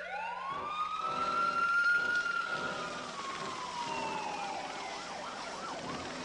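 Police car sirens wailing. One siren rises at the start and then slowly falls in pitch, and faster warbling sirens join near the end.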